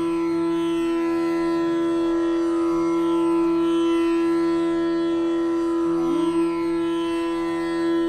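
Background music over a steady drone note, with one note sliding upward about six seconds in.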